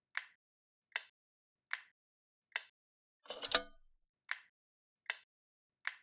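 Even, clock-like ticking over silence, about one sharp tick every 0.8 s, with a fuller double knock about halfway through.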